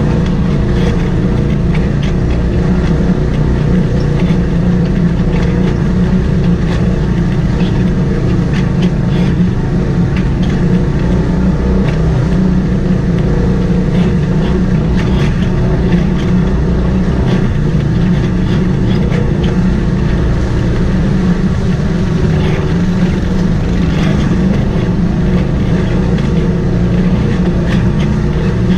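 Side-by-side UTV engine running steadily at trail-crawling speed, with frequent knocks and rattles as the vehicle rolls over rocks.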